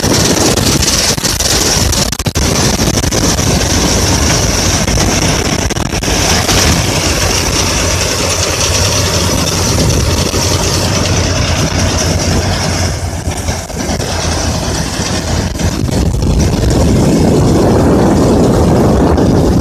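Combine harvester running while harvesting wheat, a steady mechanical din with a high whine that fades out about halfway through; the sound grows louder over the last few seconds.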